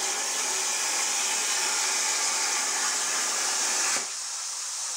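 Plasma cutter torch cutting through steel plate: a loud, steady hiss from the plasma arc, which drops off sharply about four seconds in, leaving a quieter hiss.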